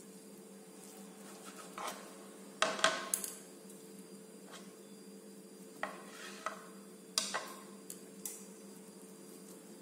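Steel kitchen knife clicking and knocking against a plastic cutting board as a cake is cut and the knife is set down: a scatter of sharp clicks, loudest about three seconds in. A steady low hum runs underneath.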